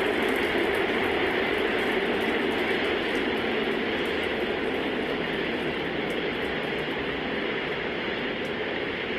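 Engine noise of the SpaceX Super Heavy booster's 33 Raptor engines during ascent: a steady, even rushing noise that slowly fades as the rocket climbs away.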